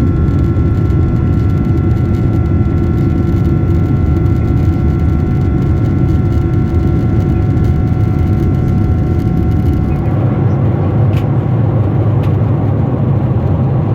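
Steady jet engine noise inside the cabin of a Boeing 767-400ER, a loud noise with a few constant whining tones over it. About ten seconds in the whine drops out and the noise turns brighter, with two faint clicks.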